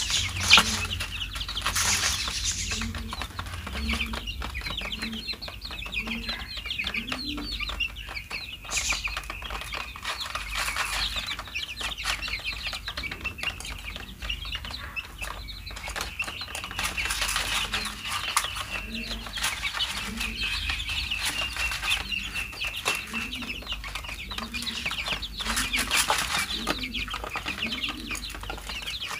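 A flock of 23-day-old chicks cheeping continuously in rapid high peeps while feeding, with many quick clicks of beaks pecking at grain in the feed pan.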